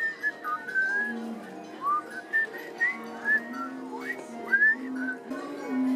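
A melody whistled in short notes that slide up into pitch, over music with held low notes.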